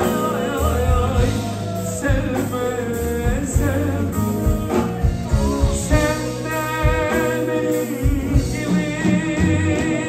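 Live band playing a Turkish folk song (türkü) on keyboard, electric guitar and drum kit, with a man singing long, wavering held notes.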